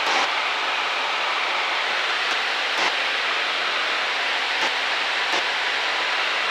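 Steady cabin noise of a Cessna light aircraft in cruise, heard inside the cockpit: its piston engine and propeller running evenly under a constant rush of wind. There are a few faint clicks.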